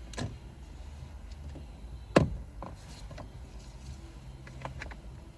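Sharp knocks and light clicks of hands and a screwdriver working on the steering column's plastic trim and screws, with one loud knock about two seconds in and a few lighter ticks near the end.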